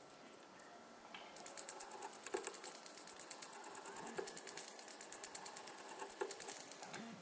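Endodontic handpiece driving a Reciproc nickel-titanium file back and forth in reciprocating motion, giving a rapid, regular clicking as the file shapes a curved canal in a resin block. The clicking starts about a second and a half in and stops near the end.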